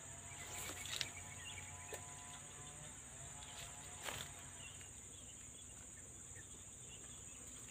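Steady high-pitched insect chorus buzzing throughout, with a few faint clicks about one, two and four seconds in as the spinning rod and reel are handled.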